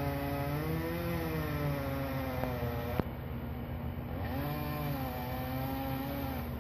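Chainsaw running under load, its engine pitch rising and falling as it cuts through a large branch. A single sharp click about three seconds in.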